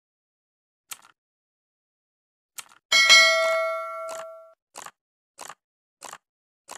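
Subscribe-button sound effects: a faint click, a sharper mouse click, then a bright notification-bell ding about three seconds in that rings out for about a second and a half. A run of short, even ticks follows, about every two-thirds of a second.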